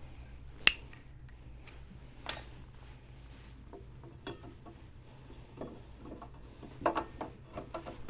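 Metal clicks and knocks from a scooter's front disc brake caliper being handled and fitted back over the brake disc. There is one sharp click about a second in, a brief scrape, then a run of small knocks and clicks near the end.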